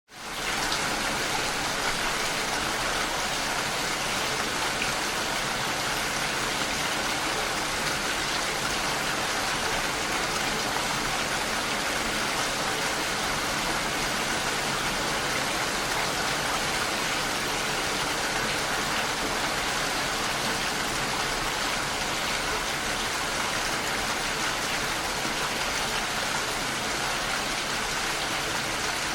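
Steady rain falling, an even dense hiss of raindrops that fades in over the first second.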